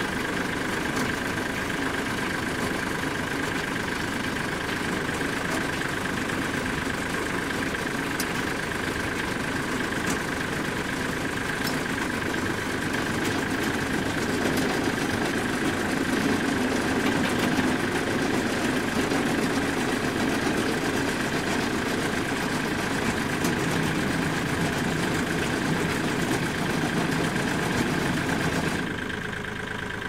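Tractor engine running steadily, driving a Daramdale 870 compact round baler through its PTO, with a steady high whine above the engine note. The sound quietens a little about a second before the end.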